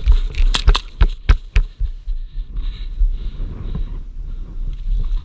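Gas blowback airsoft pistols firing a quick string of sharp cracks during the first second and a half. Then low, uneven thudding of footsteps and body-camera knocks as the player runs.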